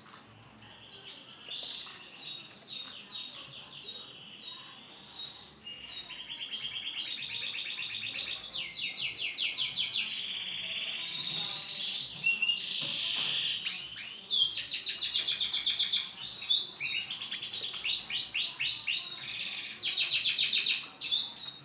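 Male domestic canary singing a long, continuous song of rapid trills and rolled passages, with quick pitch glides between phrases and the loudest trills near the end.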